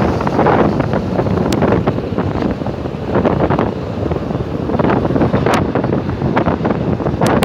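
Type 201 tram motor car running along its track: a steady, loud rumble of wheels on rails and running gear, with wind on the microphone. A few sharp clicks cut through, about a second and a half in, around five and a half seconds, and twice near the end.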